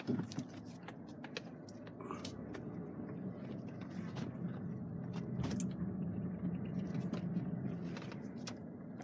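Inside a Cadillac's cabin on a slow drive: a low, steady engine and road hum that swells a little midway, with a sharp knock at the start and scattered small clicks and rattles.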